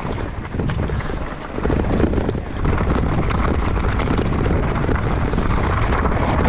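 Mountain bike riding down a rocky downhill trail: tyres rumbling over rocks and wind buffeting the microphone, with many short rattling clicks from the bike. It gets louder a little under two seconds in.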